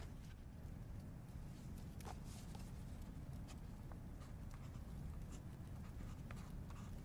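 Faint low rumble with scattered soft clicks and rustles.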